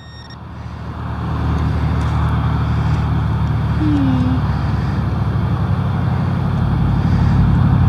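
Highway traffic noise: a steady rumble of road vehicles that swells over the first second or two and stays loud.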